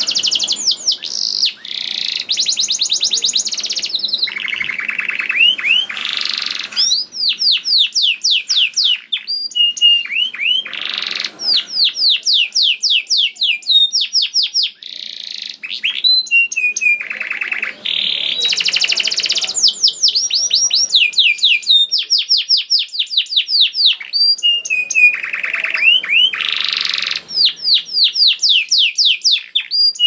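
Domestic canary in full song: a long run of rapid trills and rolls, phrases of fast repeated sweeping notes that change every second or two, with only brief breaks.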